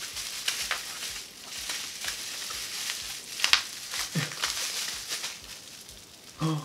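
Clear plastic bubble wrap crinkling and crackling as it is handled and pulled open by hand, with a sharper crackle about halfway through.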